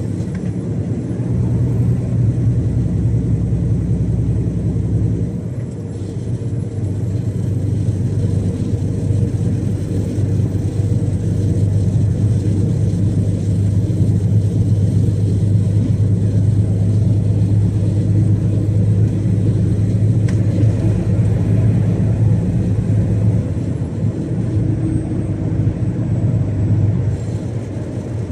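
Iveco Stralis 570XP truck engine droning steadily at motorway cruise, with a brief dip in loudness about five seconds in.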